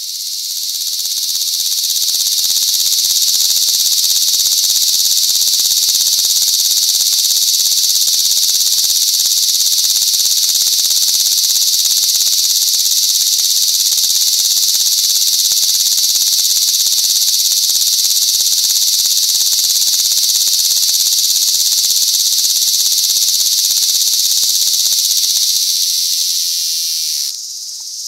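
A cicada singing: a loud, steady, high-pitched buzzing song that swells up over the first couple of seconds, holds evenly, then eases and drops off sharply near the end.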